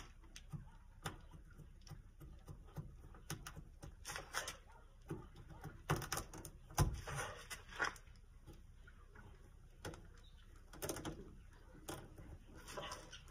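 Scattered faint clicks and rustles of hands working at a car door with small scissors and cloth, with a dull thump about seven seconds in.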